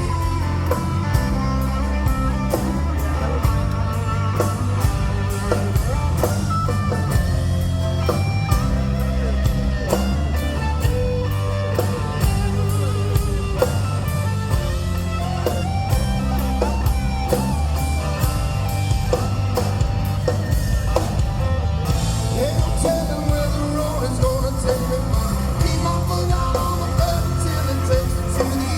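Live rock band playing an instrumental break: electric guitar lines over bass guitar and a drum kit keeping a steady beat. The cymbals get louder about three-quarters of the way through.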